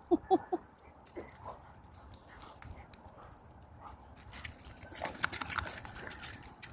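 A dog barks three times in quick succession near the start, with a fainter bark about a second later. About five seconds in comes a stretch of rustling and clattering noise.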